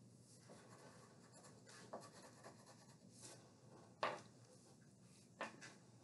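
Faint scratching of a Sharpie marker tip drawing short strokes on paper, with three short taps: about two seconds in, at four seconds (the loudest), and near the end.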